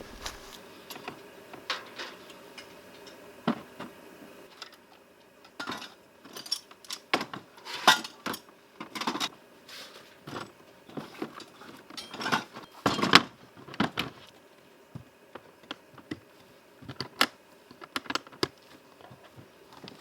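Dishes and utensils clinking and clattering as they are handled, in irregular bursts that are busiest about a third of the way in and again past the middle.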